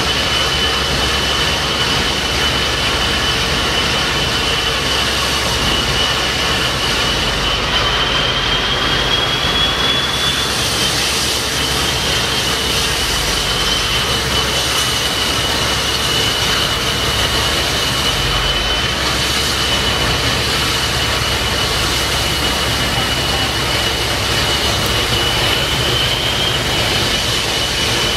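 TriCat 45M high-speed catamaran's gas turbines running at manoeuvring power: a steady high whine over a constant rushing noise from the waterjets. The whine rises slightly in pitch about eight seconds in, drops back a couple of seconds later, and lifts briefly again near the end.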